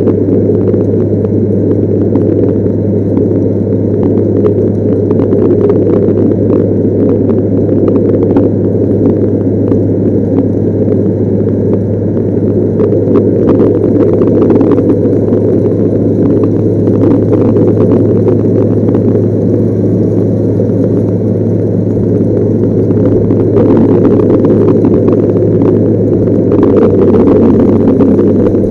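Volvo L110F wheel loader's six-cylinder diesel engine running steadily as the machine drives, a loud constant drone with scattered knocks and rattles.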